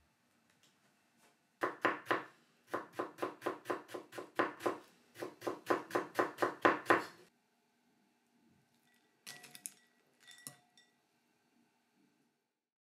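Kitchen knife cutting stacked thin sheets of daikon into fine strips on a wooden cutting board: quick even strokes at about four a second, in three runs with short pauses. A few light clinks follow near the end.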